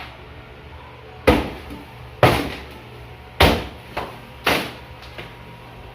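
Hammer blows on a broken cabinet being knocked apart: four loud strikes about a second apart, each ringing briefly, with a lighter knock between the third and fourth.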